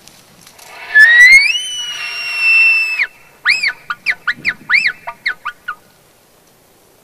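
Elk bugle: a high whistle that rises and is held for about two seconds, then cuts off, followed by a quick run of about eight short chirping notes.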